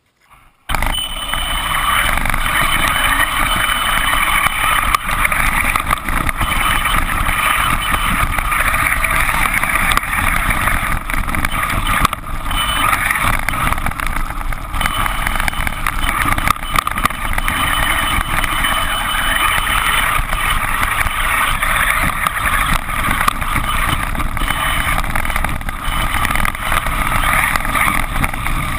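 Traxxas E-Revo electric RC monster truck driving through snow, heard from a GoPro mounted on it: a steady motor and drivetrain whine over a rush of noise from the tyres and the spraying snow. It starts suddenly about a second in.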